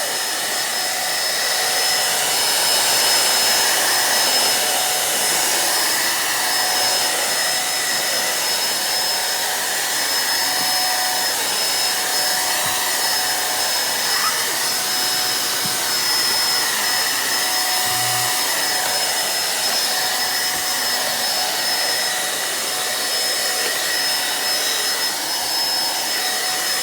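Mondial vacuum cleaner running steadily with a motor whine while vacuuming the floor through its extension tube and floor nozzle; the tone wavers a little throughout.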